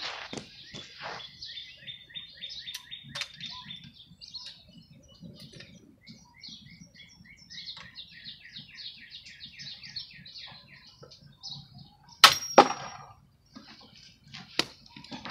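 Birds chirping in quick repeated notes, with two sharp loud clicks about twelve seconds in and another shortly before the end.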